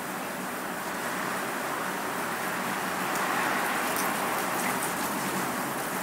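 Steady rain with wind, an even hiss that grows slightly louder about halfway through.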